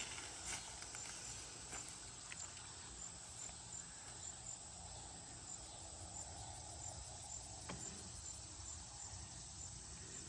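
Faint, high-pitched insect chirping, an even pulse repeating a few times a second.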